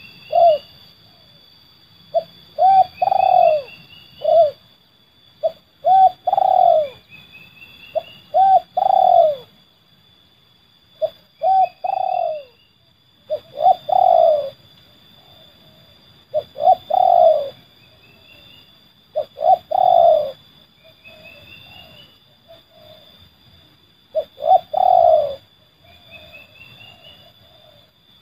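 Spotted dove (terkukur) cooing: a phrase of a few coos, the last one longer, repeated about every two and a half to three seconds, a call pattern known to dove keepers as 'seladang gantung'. Faint short rising chirps come between the phrases, over a steady high whine.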